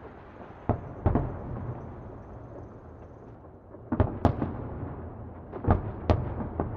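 Distant fireworks exploding: two sharp bangs about a second in, a lull, then a quicker run of bangs from about four seconds on, over a low rolling rumble.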